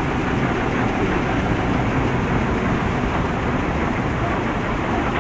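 Tea-grading machine running steadily, a continuous mechanical din as dry tea granules are sorted and fall through its chutes.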